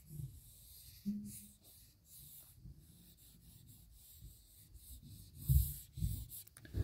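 Faint, scattered background noises: rubbing and a few low thumps, the loudest about five and a half seconds in, with a short low hum about a second in.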